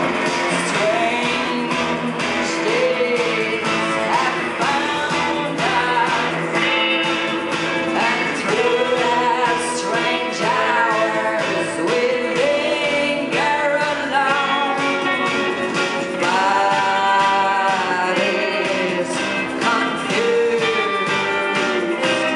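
Live band playing: guitars with a gliding, bending melody line over them.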